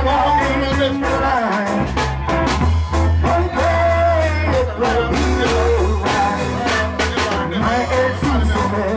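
Group of voices singing over a steady percussive beat.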